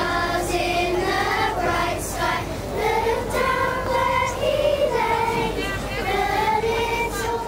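A children's choir singing, with long held notes.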